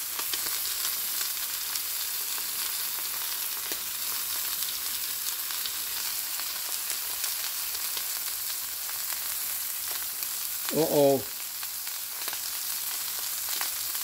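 Chuck roast steak sizzling steadily in hot oil in a frying pan, with a few faint pops.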